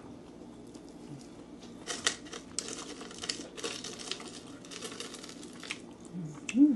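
Fingers pressing a ball of sticky rice into crispy fried garlic and fried chillies on a plate, a run of light crackling rustles. A brief hum of a voice near the end.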